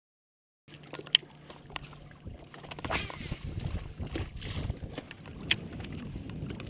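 Brief dead silence, then the quiet sounds of bass fishing from a boat's front deck: water lapping, a steady low hum from the electric trolling motor, and the rustle of a cast and a baitcasting reel being cranked. Two sharp clicks stand out, about a second in and near the end.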